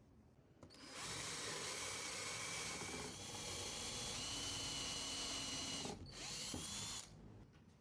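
A power tool running for about six seconds, a dense noise with a thin steady whine. It drops out briefly near the end, starts again, then cuts off suddenly.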